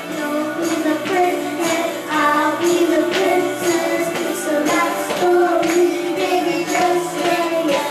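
Karaoke pop backing track playing through loudspeakers, with a steady beat and a melody, and some singing over it.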